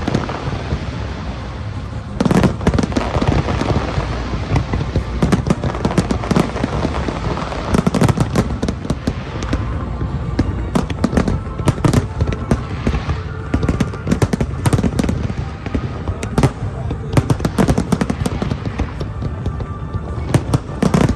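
Fireworks display: a dense, continuous barrage of bangs and crackling from many shells bursting in quick succession.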